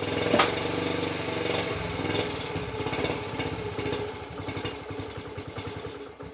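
Honda ST50's small 49cc four-stroke single-cylinder engine running, its firing beats slowing and getting quieter toward the end as the revs sag. The owner remains unconvinced by the freshly cleaned carburettor.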